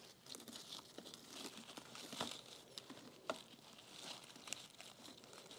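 Faint rustling and crinkling of rose stems, leaves and petals being handled and pushed into a flower arrangement, with a few light ticks, the clearest about two and three seconds in.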